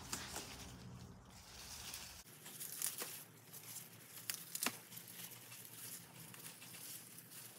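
Faint rustling and tearing of lettuce leaves being handled and picked, with a few sharp snaps around three and four and a half seconds in.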